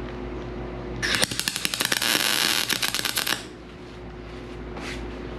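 MIG welder laying a short bead on sheet-steel body panel: a steady crackling starts about a second in, lasts a little over two seconds and cuts off.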